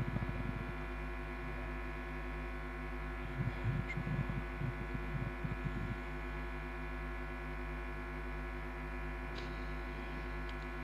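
Steady electrical hum from a sound system, with faint low murmuring of voices about three to six seconds in.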